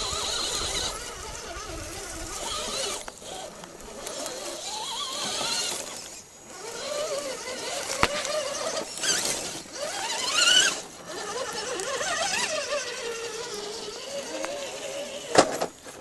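Electric drive motor and gears of a scale RC crawler whining, rising and falling in pitch again and again with the throttle as it climbs over rock. Near the end comes a sharp knock as the truck tips over onto its roof.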